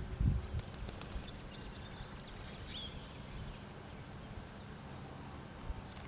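Steady outdoor background noise with a low rumble during the first half-second and a faint high chirp about three seconds in.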